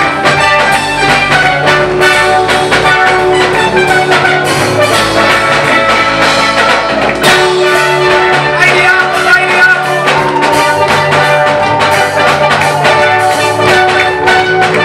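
Loud live praise music from a church band, with sustained pitched instrument notes over a steady drum beat.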